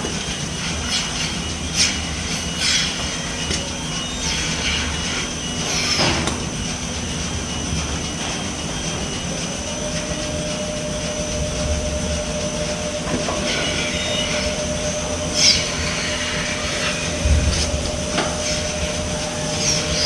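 Machinery of a rotary milking platform running: a steady mechanical drone with a constant high whine, as the platform turns on its rollers, and sharp metallic clanks now and then. A further steady tone joins about halfway through.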